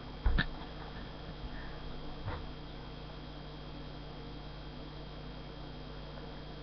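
Steady electrical hum of room tone, with a sharp knock near the start and a fainter knock about two seconds in.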